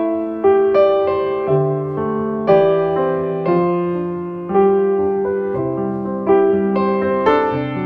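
Background piano music: a slow melody of sustained, struck notes.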